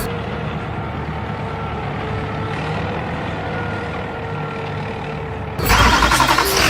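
A heavy vehicle's engine running steadily with a faint steady whine. About five and a half seconds in, it cuts suddenly to louder music.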